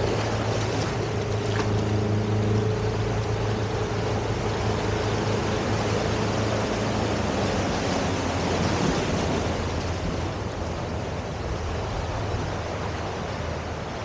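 Sea surf washing onto a beach, a steady rushing noise, with a low engine hum that fades out about halfway through.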